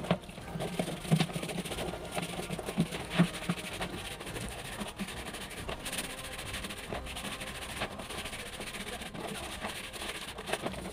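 Water running from a wall tap onto a plastic poultry waterer as it is scrubbed by hand, with irregular knocks and scrapes of the plastic against the concrete floor.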